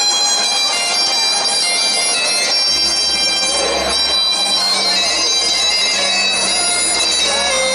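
Music led by a bagpipe-like reed melody of held notes; a low drone comes in under it about three seconds in.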